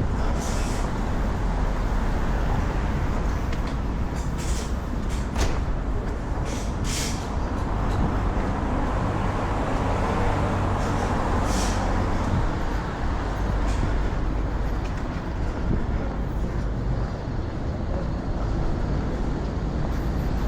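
City street traffic: a steady low rumble of passing vehicles, with several short high hisses.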